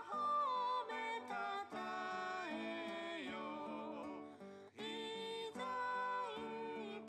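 A recorded song, singing with acoustic guitar, played back in the room, with a short break about four and a half seconds in.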